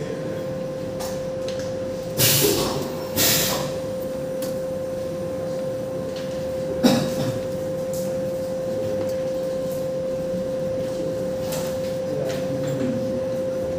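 CNC machine humming steadily on one tone, with two short hissing bursts a couple of seconds in and a sharp clack near the middle.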